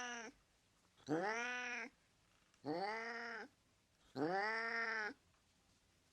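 Domestic cat meowing over and over in drawn-out calls, each under a second long, rising in pitch at the start and then holding level. The calls come about every one and a half seconds: the end of one call, then three more.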